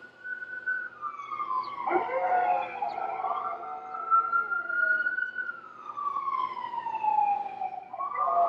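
Emergency vehicle siren wailing, its pitch slowly rising and falling, with a dog howling along to it.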